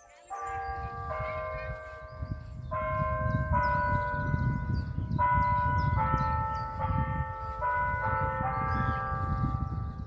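Church bells ringing a sequence of notes at different pitches, a new strike about every second, each ringing on under the next. A steady low rumble runs underneath.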